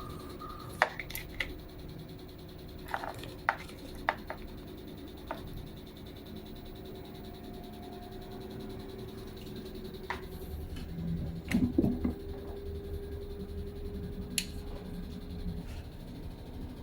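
A few sharp clicks and light knocks over a steady low hum, with a louder short clatter about twelve seconds in.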